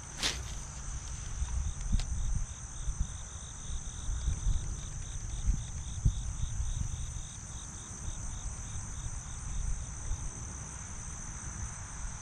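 Insects chirping steadily: one continuous high trill, with a second chirp pulsing about three times a second beneath it, over a low irregular rumble.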